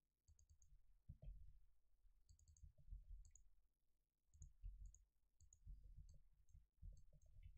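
Faint computer mouse and keyboard clicks: small groups of two to four quick, sharp ticks every second or so, with dull low thuds under them, as shortcut keys are pressed and the mouse is clicked.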